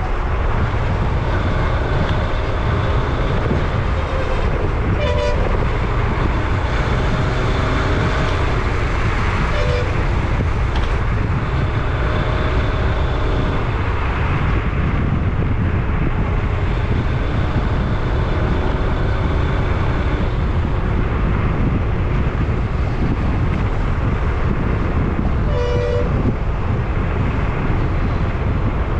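Steady vehicle running and wind noise on a highway, with short horn toots three times: about five seconds in, about ten seconds in, and near the end.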